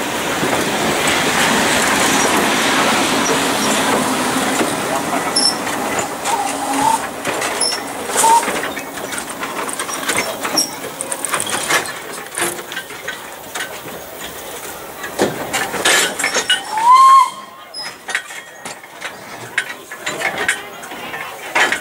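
Narrow-gauge steam train passing close by: loudest in the first few seconds as the steam locomotive goes past, then the carriages roll by with the wheels clicking and clattering over the rails. There is a short squeal near the end.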